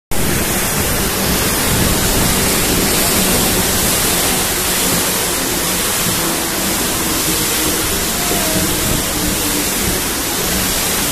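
Mumbai suburban electric train moving through floodwater that covers the tracks, the water churning and rushing along the coach sides in a loud, steady noise.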